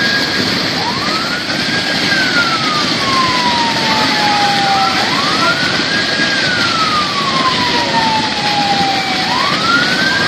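A siren wailing in slow cycles, each a quick rise in pitch followed by a long, slow fall, repeating about every four seconds, over the steady rushing noise of floodwater.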